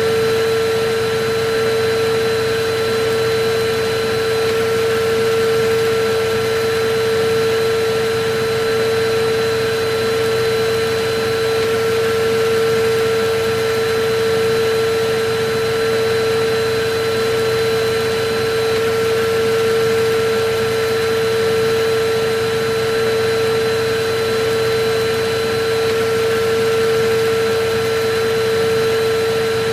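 Electric vacuum cleaner running steadily: a constant motor whine over a rushing hiss of air, with no change in speed.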